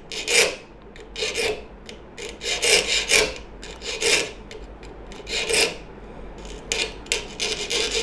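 A small saw file rasping across the steel teeth of a hand saw blade clamped in a vise, in separate strokes about a second apart that come quicker near the end: the teeth are being sharpened, here the last tooth at the saw's tip.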